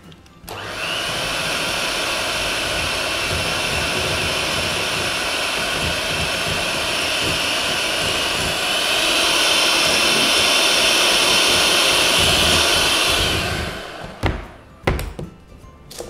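Emerald electric hand mixer running, its beaters whisking meringue batter in a glass bowl, with a steady whine. About eight and a half seconds in it turns louder and higher, then it switches off, and a few sharp knocks follow.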